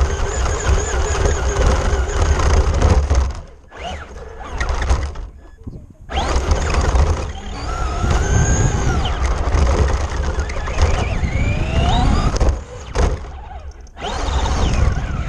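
Traxxas RC car driving, heard from a camera mounted on its body: a loud rumble of the wheels over grass and then concrete, with a whine that rises and falls in pitch. The sound drops away briefly three times.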